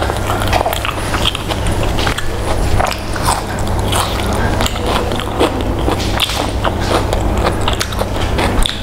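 Close-miked eating: chewing and mouth sounds of a person eating rice and chicken by hand, a quick, uneven run of small sharp clicks over a steady low hum.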